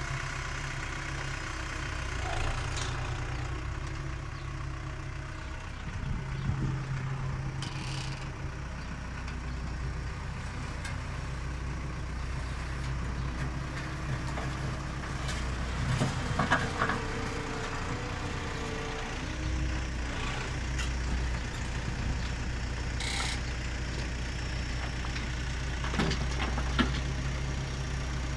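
Farm tractor's diesel engine running steadily under load while it works a rear-mounted bucket loader into a pile of rubble, with a few short clanks and scrapes, the loudest about halfway through and again near the end.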